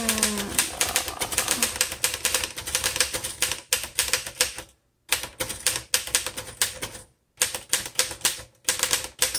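Typing on a 1928 Royal 10 manual upright typewriter: the type bars strike in quick runs of keystrokes, with two brief pauses about five and seven seconds in.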